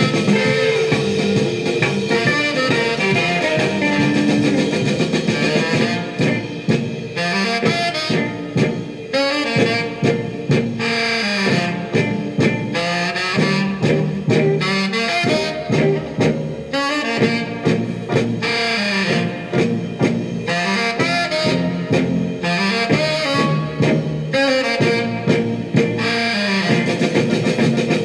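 A 45 rpm record playing through a 1956 RCA 7-HF-45 Orthophonic high-fidelity record player with its lid closed: music led by saxophone and brass over a drum kit.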